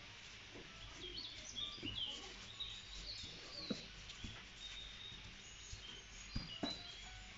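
Birds chirping, with many short high calls throughout, over a few light knocks from dough being rolled out and pressed on a wooden board.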